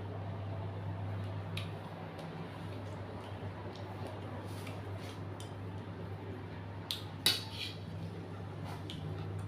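Eating utensils tapping and clinking against a bowl during a meal of suki soup: scattered light clicks, the sharpest pair about seven seconds in, over a steady low hum.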